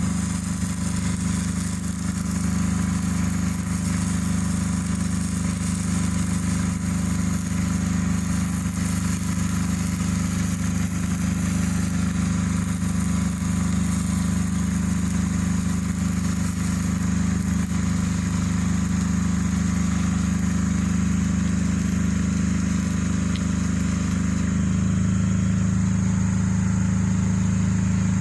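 Excavator's diesel engine running steadily, its note changing about 24 seconds in.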